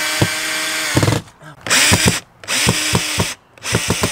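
Cordless drill driving stainless steel screws into the frame of an RV's exterior access door. The motor whines in several short runs with brief stops between, over a rapid, even clicking.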